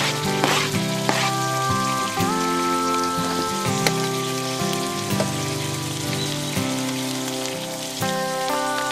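Background music with sustained chords that change every second or two, over a steady crackling hiss with a few short clicks.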